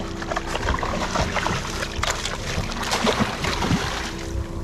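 Hooked bonito thrashing at the surface beside the boat, a rapid, irregular splashing that eases near the end. Under it runs the steady hum of the boat's engine.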